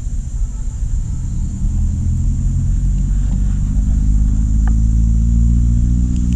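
A motor engine running with a low, steady drone that grows louder from about two seconds in.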